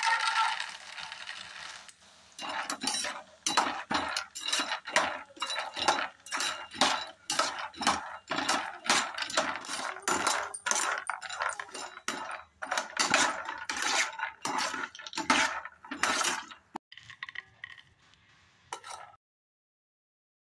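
Almonds poured into a pan of hot ghee with a brief rattling rush, then stirred with a spatula: repeated clinking and scraping strokes of nuts and spatula against the pan, about two a second, for some fourteen seconds.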